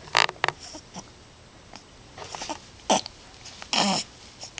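Baby hiccuping: a few short, sharp hiccups with small squeaky vocal sounds between them.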